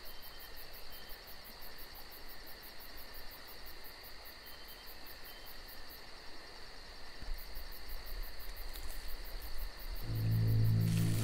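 Faint steady high-pitched insect chirring, like crickets, over quiet woodland background. About ten seconds in, a low steady drone comes in and grows louder.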